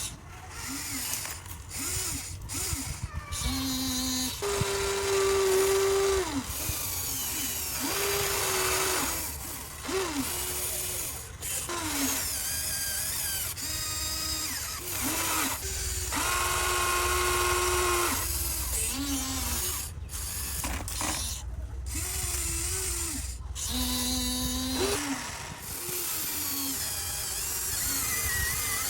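Huina RC excavator's small electric gear motors whining and rattling in short runs that start and stop, the pitch rising and falling as the boom, arm and bucket move.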